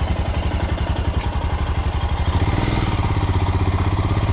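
Motorcycle engine idling with a steady, rapid beat; its note shifts slightly a little over two seconds in.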